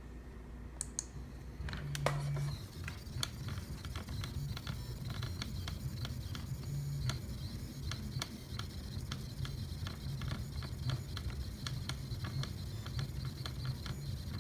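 Small laser engraver at work: rapid, irregular clicking with a low motor hum that comes and goes in short spurts, starting about two seconds in.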